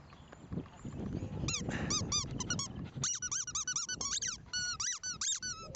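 A dog whining in rapid, high-pitched cries, several a second, that start about one and a half seconds in and grow louder about halfway through.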